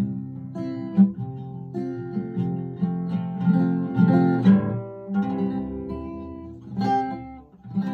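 Acoustic guitar strumming and picking the closing instrumental bars of a slow cowboy ballad, with no singing. A last strummed chord comes near the end.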